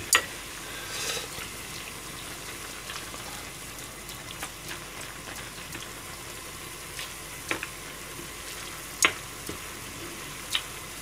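Beef, onion and shirataki noodles simmering in broth in a frying pan, bubbling steadily, while a metal ladle stirs the pan and spoons the broth over the meat. A few sharp clinks of the ladle against the pan come at the start and again in the last few seconds.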